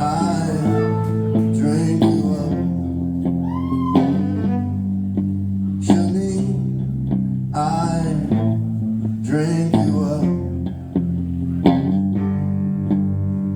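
Live band playing a song, with a bass guitar holding steady low notes under guitar and a sharp drum hit about every two seconds.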